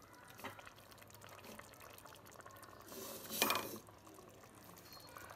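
A plastic spatula stirring thick mutton curry in an aluminium pot, faint, with one short louder scrape about three seconds in.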